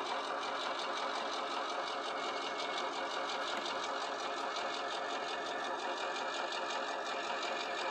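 Recorded diesel engine sound from the sound decoder of a Murphy Models 121 class model locomotive, playing through the model's small speaker and running steadily at an even level.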